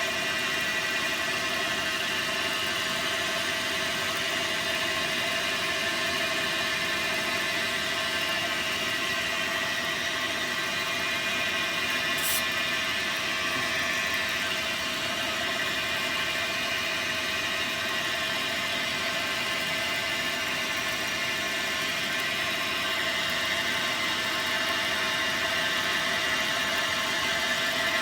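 Dyna Mechtronics DM3000 CNC lathe running, a steady whir with several held tones, as it turns a part; a brief sharp click about twelve seconds in.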